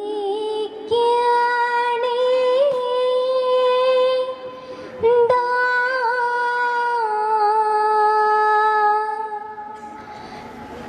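A woman's voice singing a Margamkali song in long, slowly held notes, with a short break about four seconds in and a softer stretch near the end.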